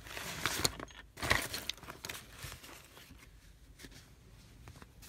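Small objects and cards being rummaged through by hand: rustling and light clattering over the first couple of seconds, then quieter handling with a few small clicks.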